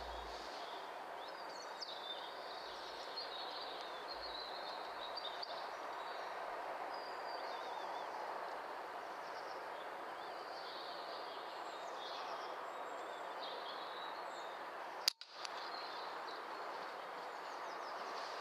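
Woodland ambience with small birds chirping over a steady faint hiss, then, about three-quarters of the way through, a single sharp air rifle shot, with a brief cut in the sound right after it.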